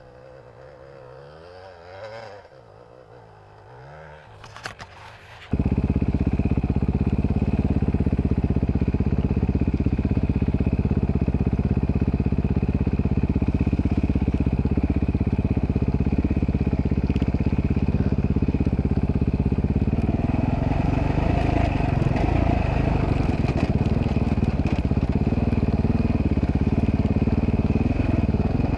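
Dirt bike engine heard from the rider's seat while riding over snow-covered ground. It is faint and wavering for the first few seconds, then suddenly loud and steady from about five seconds in.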